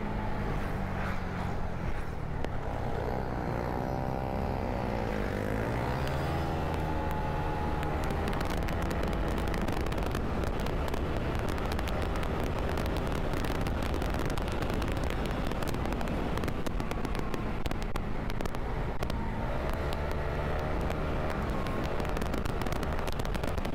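Kymco KRV 180 TCS scooter's single-cylinder engine running under way, with steady wind noise over it. The engine pitch climbs and falls a few seconds in and again near the end.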